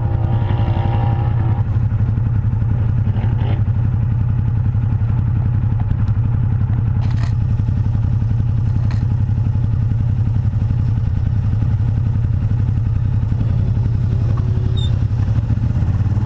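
Arctic Cat Wildcat side-by-side UTV engine running at a steady pace while driving, with a low, even drone and a couple of sharp clicks partway through.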